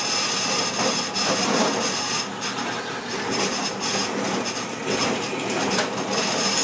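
Drill press running, its bit cutting into a Volvo XC90 thermostat housing to drill out the nipple's threaded hole for a 1/8-inch pipe tap.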